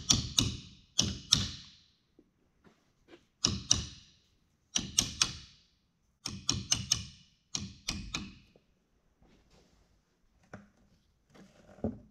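Ratchet wrench clicking in short runs of quick, ringing metallic clicks, several runs a second or so apart, then only a few faint ticks near the end, as a clutch pack in a Carraro backhoe transmission is compressed to expose the snap ring groove.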